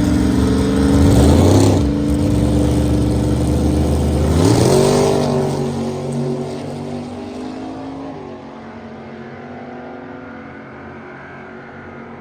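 Gasser hot rod's engine accelerating hard, its pitch dropping and climbing again twice as it shifts gears, then fading as the car pulls away.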